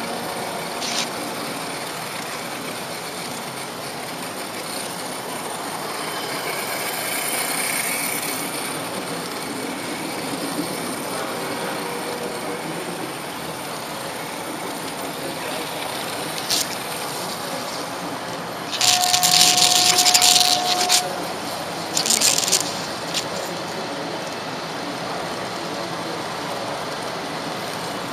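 Electric model train running along the track, a steady rumble and rattle. About two-thirds of the way through comes a loud hiss lasting about two seconds, carrying a steady tone, and a shorter hiss follows a second later.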